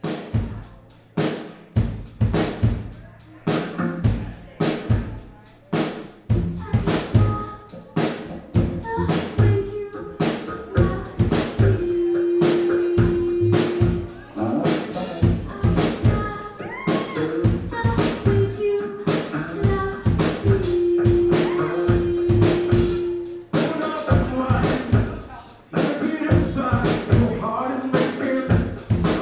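Live band playing, with regular drum kit hits of snare and bass drum and long held notes in the middle.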